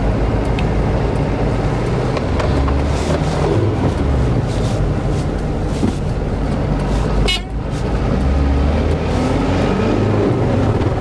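Heavy truck's diesel engine pulling hard in first gear up a steep climb, its note rising twice as it revs. A short hiss with a brief dip in the engine sound comes about seven seconds in.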